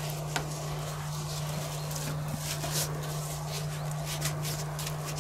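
Gloved hands patting and pressing a raw minced-meat loaf into shape on a grill mat: soft slaps and rustles of the nitrile gloves on the sticky meat, over a steady low hum.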